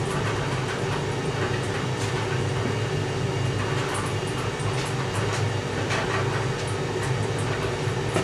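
Small engine running steadily at a constant speed, with faint clicks and scrapes over it.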